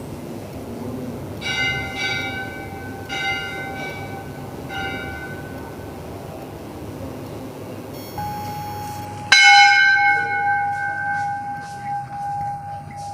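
Hindu temple bells rung by hand: one bell struck about five times in quick, uneven strokes in the first five seconds, then a louder strike of another bell about nine seconds in that rings on for several seconds. Steady low background noise underneath.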